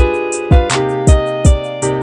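Background music with a strong beat: deep drum hits about twice a second, with sharp high hits and held chords between them.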